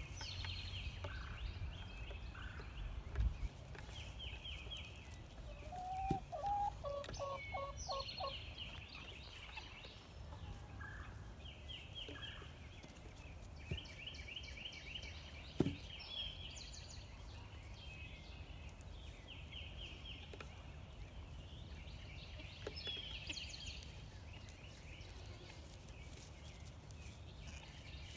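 Birds calling throughout: short, rapid high trills repeated every few seconds, and a lower run of quick notes about six to eight seconds in. A couple of short knocks stand out, one about three seconds in and another around sixteen seconds.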